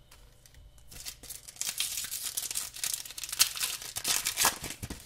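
Shiny foil wrapper of an O-Pee-Chee hockey card pack crinkling and tearing as it is ripped open by hand, starting about a second in.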